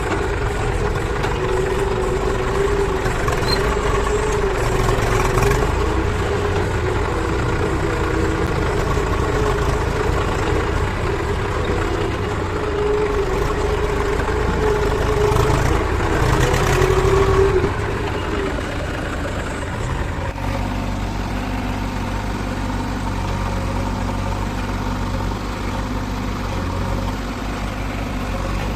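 Diesel engines of a backhoe loader and tractors running, with a wavering high whine over the engine note. A little over half-way the whine stops and the sound changes to a steadier, lower engine hum.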